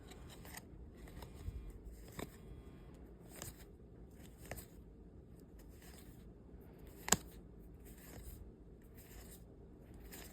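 Disney Lorcana trading cards being slid and flipped through one at a time, giving faint soft swishes about once a second. There is a single sharp tap about seven seconds in.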